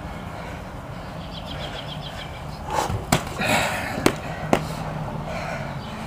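Boxing gloves landing punches: a few sharp smacks bunched together in the middle, over a steady low background hum.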